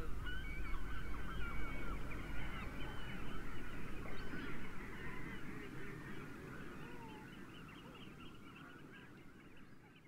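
A flock of estuary birds calling, many short overlapping calls at once, over a low steady rumble. The calls fade out steadily over the second half.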